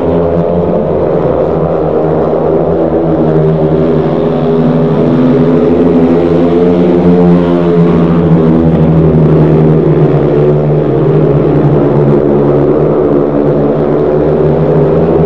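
A pack of speedway motorcycles racing flat out, their 500 cc single-cylinder methanol engines running at high revs in a loud, steady, overlapping note.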